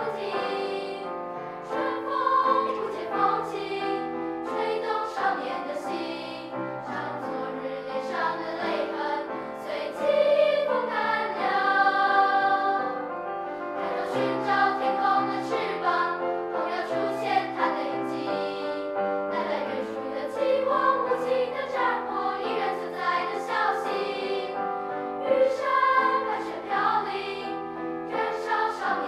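Children's choir of boys and girls singing a part-song in harmony, swelling loudest about ten to thirteen seconds in.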